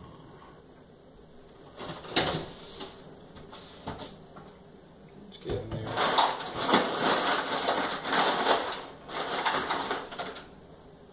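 Ice water sloshing and ice rattling in a stainless-steel sink as a glass flask of hot starter wort is worked around in the ice bath to cool it. There is a short clatter about two seconds in, then several seconds of continuous sloshing and rattling that dies away near the end.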